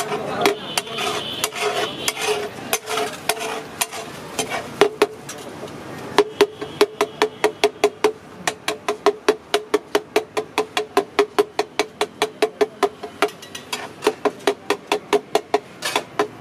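Flat metal spatula chopping and scraping masala on a large iron tawa griddle: irregular scrapes and clatter at first, then from about six seconds in a steady run of sharp metallic clacks, about four a second.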